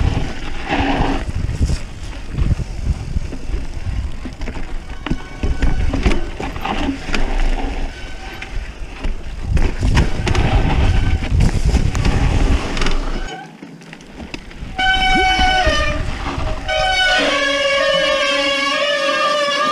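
Mountain bike ridden fast down a rough night trail: tyre and trail rumble with the bike rattling and knocking. About fifteen seconds in, a pitched whine with a wavering pitch takes over.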